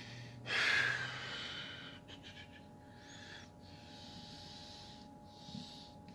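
A person breathing in and out close to the microphone, a run of soft breaths with the loudest about half a second in.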